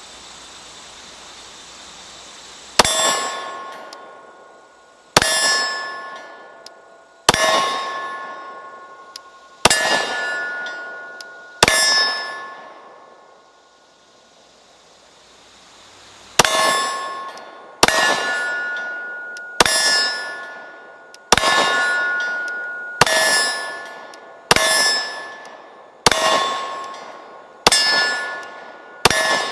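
9mm Glock P80 pistol fired in single, evenly paced shots, about fourteen in all, with a pause of about four seconds after the fifth. Each shot is followed by a ringing clang from the steel target as it is hit, fading out over a second or two.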